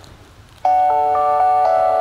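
Wireless driveway alarm receiver playing its second alert tone: a chime melody of several notes that enter one after another and ring on together, starting about half a second in.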